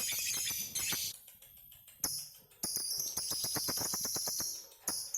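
Lovebirds ngekek: long, fast, rattling trills of shrill chattering notes. The first burst breaks off about a second in, a short burst follows near two seconds, and a longer trill runs for about two seconds before stopping near the end.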